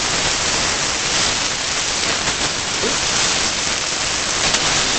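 Pork shank chops sizzling steadily in hot oil in a nonstick frying pan on medium-high heat as they are turned with a spatula, with a couple of small clicks near the end.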